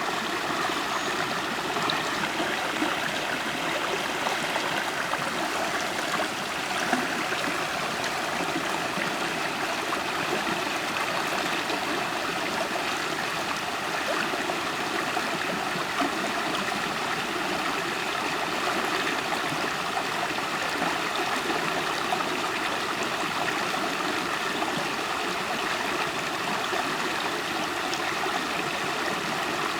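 River water flowing and gurgling steadily over rocks, with small splashes here and there.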